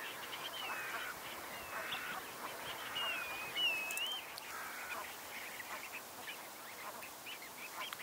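Coastal birds calling: a busy chatter of short calls with several clear, wavering whistles, the loudest about three and a half seconds in.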